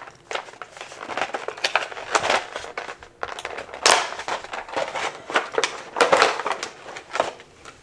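Clear plastic blister cover crinkling and crackling as hands peel it off a plastic accessory tray, with irregular sharp crackles, loudest about four and six seconds in.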